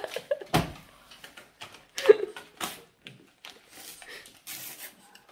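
Paper crinkling and rustling in irregular short bursts as a Boston terrier tramples torn magazine pages, with small knocks of paws and paper against a wooden table. A brief vocal sound about two seconds in is the loudest moment.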